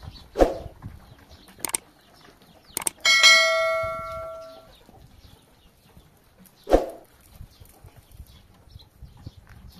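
A few sharp knocks, and about three seconds in a struck piece of metal clangs and rings for about a second and a half before fading.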